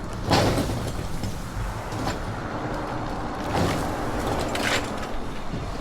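Tree limb tips caught on a tin roof, knocking and scraping against the metal as they are kicked loose: four sharp knocks a second or so apart over steady background noise.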